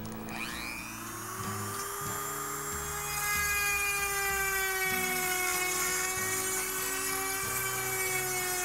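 Dremel rotary tool spinning up about a second in, then running with a steady high whine as its bit carves the nostril passage into a foam elk mannikin. It gets louder from about three seconds in.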